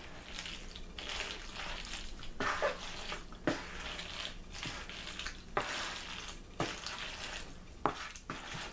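A wooden spoon stirring mayonnaise-coated macaroni salad in a plastic bowl: a wet squelching with a sharp knock about once a second.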